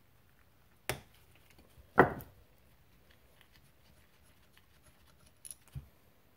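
A sharp knock, then a louder one with a short ring about two seconds in, as a screwdriver and carburetor parts are handled and set down on a wooden workbench, followed by two light clicks near the end.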